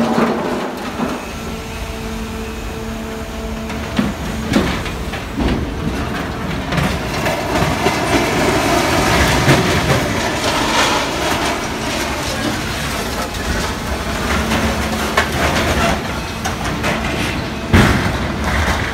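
Heavy stationary material-handling crane running with a steady machine hum while its orange-peel grapple lowers a scrapped military vehicle hull into a steel scrap box, the steel hull scraping and knocking against the box walls, with a loud metal clank near the end as it settles in.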